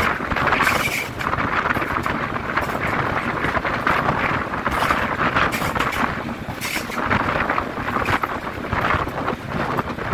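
Wind buffeting a microphone held out of a moving Class 33 diesel locomotive, with the train's running noise beneath, in uneven gusts.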